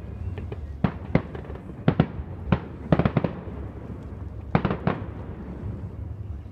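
Fireworks display: sharp bangs of bursting shells, some single and some in quick clusters, about a dozen over several seconds, over a steady low background noise.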